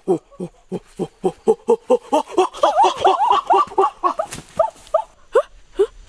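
A person making a fast run of short voiced grunts or cries, about four or five a second, rising in pitch toward the middle, then slowing to a few spaced cries near the end.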